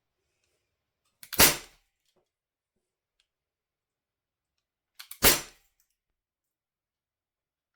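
Umarex Walther P99 DAO CO2 blowback airsoft pistol fired twice, about four seconds apart: each shot a sharp pop with the slide cycling, a faint click coming just before each.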